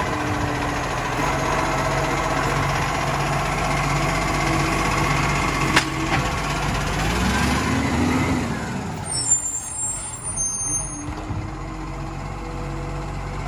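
Side-loading garbage truck's engine and hydraulic bin-lifting arm running, with a sharp clack about six seconds in as the bin is set down and the engine note rising and falling. Around nine seconds in a short high squeal of the air brakes, then the truck runs on more quietly as it moves off.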